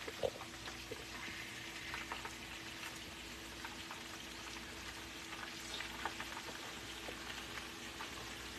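Unbreaded chicken wings deep-frying in a pot of hot oil: a steady, fairly faint sizzle with scattered small crackles and a few sharper pops near the start.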